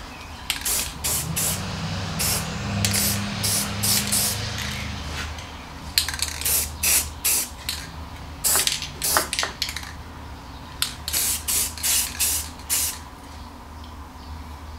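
Aerosol spray paint can hissing in a long string of short bursts, some longer than others, as black paint is sprayed onto a repaired steel wagon axle.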